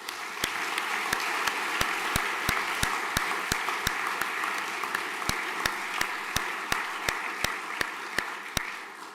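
An audience applauding, a steady wash of many hands clapping that fades away near the end. Over it, one sharp, loud clap repeats evenly about three times a second.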